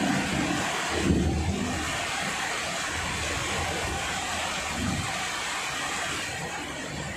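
Heavy rain falling in a steady hiss, with brief low rumbles about a second in and again near five seconds.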